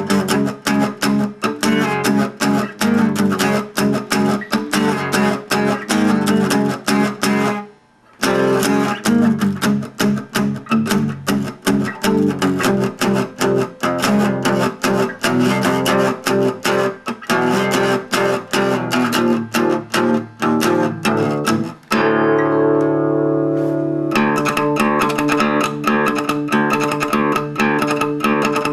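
Guitar music: rapid plucked notes, with a brief break about eight seconds in and a sustained, held chord near the end.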